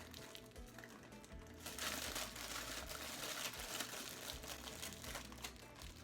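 Bag of sweet popcorn crinkling as it is handled, louder from about two seconds in, over soft background music.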